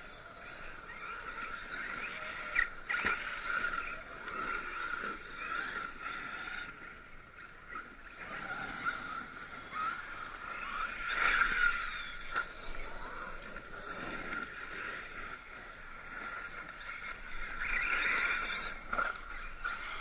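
Brushless electric RC cars running off-road: a high motor whine that rises and falls with the throttle over a steady background whine, with a few sharp knocks about two to three seconds in.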